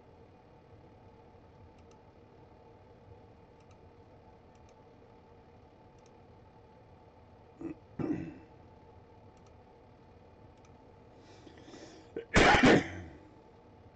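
A man clears his throat loudly once near the end, after a quieter, shorter throat sound about eight seconds in; otherwise quiet room tone.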